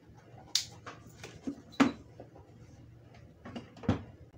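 Handling clatter on a wooden workbench: several sharp knocks and smaller ticks as a power drill and a plug on its cable are picked up and set down. The loudest knock comes about two seconds in.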